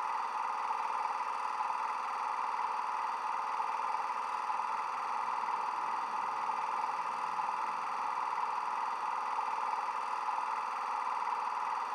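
Hornby Class 92 model electric locomotive's DCC sound decoder (LokSound 5 with a Legomanbiffo sound file) playing the standing locomotive's steady electrical hum through its small onboard megabass speaker.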